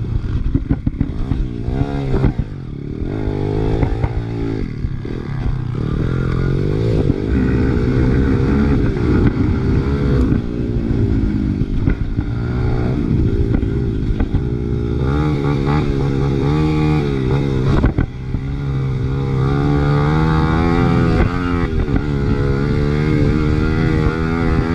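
Big-bore Honda XR100R's single-cylinder four-stroke engine revving up and dropping back again and again as the bike is ridden hard, its pitch climbing and falling with each burst of throttle, with scattered short knocks.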